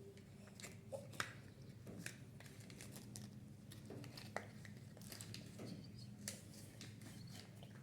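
Kinder Joy egg being handled: faint crinkling of the foil wrapper and plastic, with a few sharper clicks.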